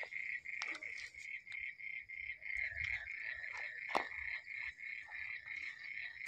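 A night chorus of chirping creatures: one high pitch pulsing steadily several times a second. A few faint clicks sound over it, with a sharper knock about four seconds in.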